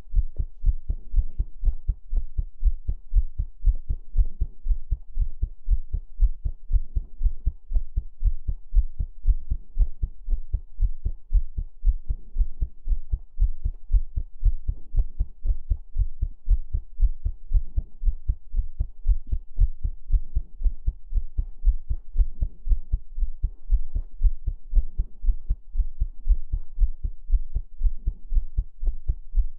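Heartbeat: a steady, even rhythm of low, deep thumps that keeps a constant pace throughout.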